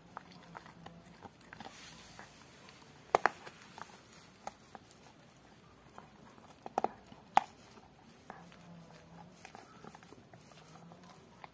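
Rottweiler gnawing a pork bone: scattered small clicks of teeth on bone, with a couple of sharp cracks about three seconds in and a few more around seven seconds.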